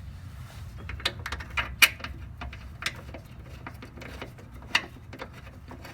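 Scattered sharp clicks and clinks of hand tools being handled, about eight at irregular intervals, over a steady low hum.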